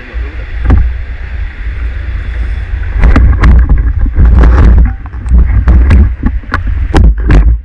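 Heavy rumble of wind and handling on a camera held low on a speargun, with splashing water and a quick run of knocks and scrapes from about three seconds in as a wading diver climbs out of the river onto the bank.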